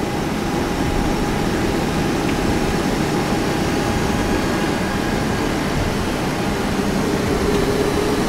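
Steady flight-deck noise in a Boeing 737 taxiing at idle: engine and air-conditioning rumble with a faint steady whine over it.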